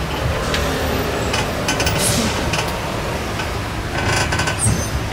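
Tourist road train carriage riding along, a steady low rumble with irregular rattles and clicks from the car.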